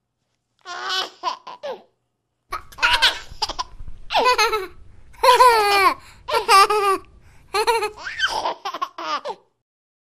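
A baby laughing in a string of short, high-pitched bursts of giggles.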